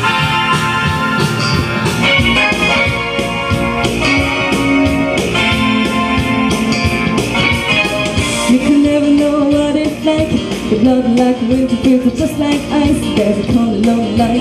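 Live song: a young woman singing into a microphone over electric keyboard accompaniment.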